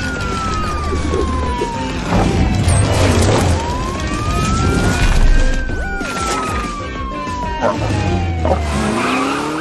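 Cartoon police car siren wailing in slow sweeps: the pitch falls for about three seconds, rises for about two, then falls again. A low engine rumble runs underneath.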